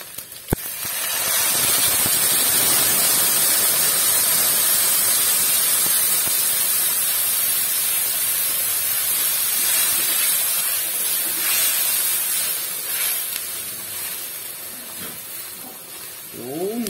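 Hot water poured into a hot wok of sautéed garlic and onions: a loud, steady hiss and sizzle as the water hits the hot metal and turns to steam. It starts about a second in and dies down near the end.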